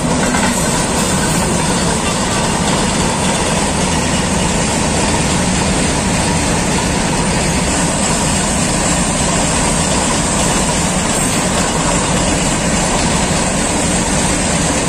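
Freight train of open wagons rolling past on the track, a steady loud noise of wheels on rails that holds unbroken throughout.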